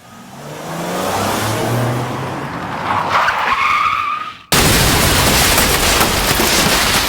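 Wire-feed (MIG) welder arc crackling and sizzling in two welding runs. The first builds up over the first second and dies away about four seconds in; the second starts abruptly about half a second later and runs on steady and loud.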